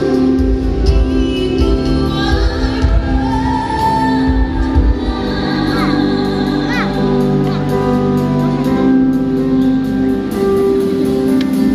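Music with singing, with held notes over several voices or instruments and a low beat in the first half.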